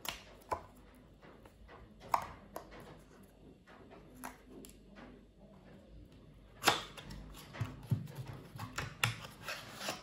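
Cardboard box of an Apple 20W USB-C charger being opened by hand: paperboard rubbing and scraping, broken by sharp clicks and snaps, the loudest about two-thirds in as the lid comes free.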